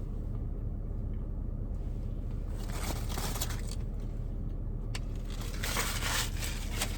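Paper food wrappers crinkling and rustling as they are handled, in two bouts with a single click between them.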